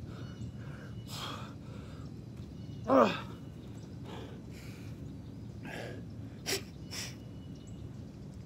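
A winded man breathing hard between push-up reps, with one loud exhale that slides down in pitch about three seconds in and a few short, sharp breaths near the end.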